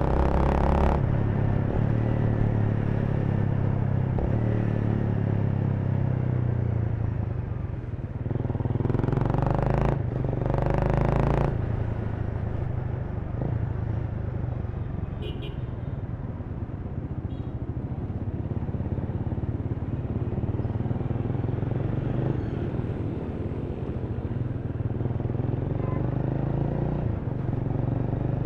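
Honda Rebel 300's single-cylinder engine running under the rider as the motorcycle moves through city traffic, its note shifting with the throttle. Two louder rushes of noise come about nine and eleven seconds in.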